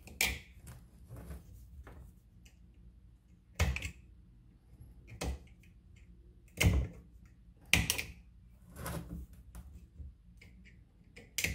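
Short, separate scrapes and clicks, about seven of them spaced a second or more apart, from hand work picking and cutting loose bits of old cracked plastic out of a steering wheel rim.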